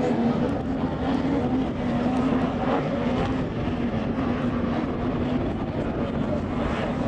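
Racing outboard engine of a super light tunnel boat running at high revs, a steady drone that fades out after about five seconds.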